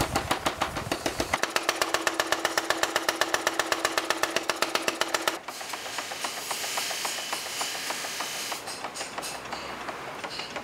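Mechanical power hammer pounding in rapid, even blows for about five seconds, then cut off abruptly. After that comes a steady hiss of the forge fire, with a few light clinks near the end.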